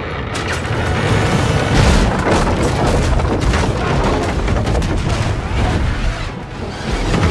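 Action-film soundtrack: dramatic music over heavy splashing water and deep booming impacts as a whale strikes and upends a whaleboat.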